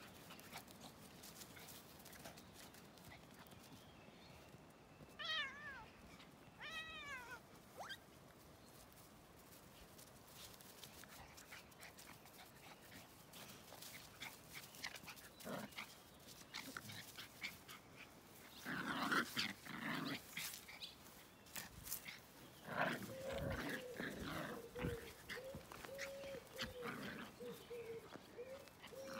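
A puppy and a small dog play-fighting on grass: bursts of scuffling with growls and yaps in the last third, the loudest part. Earlier there are two short high calls that fall in pitch.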